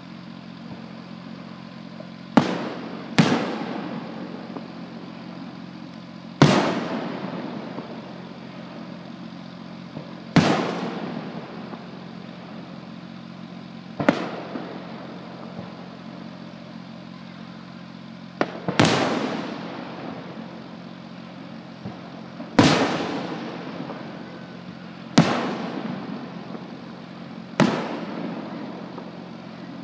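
Aerial fireworks shells bursting: about ten sharp bangs a few seconds apart, each followed by a rolling echo that dies away over a second or two. A steady low hum runs underneath.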